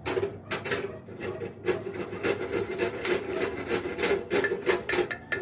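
A hand tool scraping against a steel wheel hub in quick, repeated strokes, about three a second.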